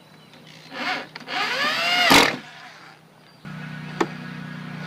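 Cordless drill or driver running up in pitch and winding down as it drives a fastener into the trailer's metal trim. About three and a half seconds in, a steady low hum starts suddenly, with a single click soon after.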